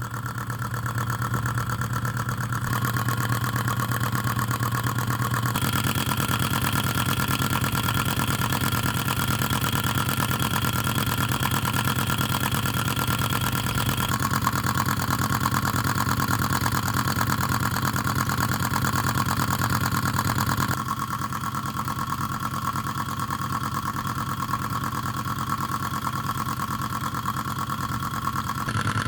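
Microcosm Rider-Ericsson model hot-air engine running steadily with a fast, even mechanical clatter, its tone shifting slightly a few times.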